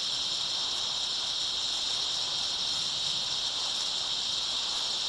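TIG welding arc burning steadily during a weld, run from an ordinary stick welding machine: an even, high-pitched hiss.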